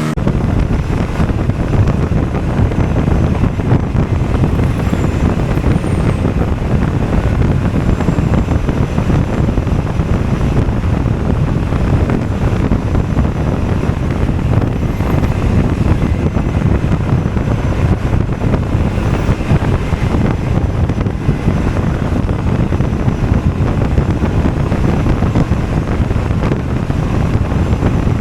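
Steady wind rush over the microphone of a moving Honda Forza 250 scooter, with its engine and road noise underneath.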